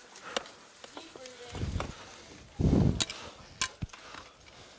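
Dry-tooling gear on rock: steel ice-tool picks and crampon points clicking and scraping sharply several times as the climber places them on small holds. Two low, heavy exhales from the climber come in the middle, the second and louder one just before a click.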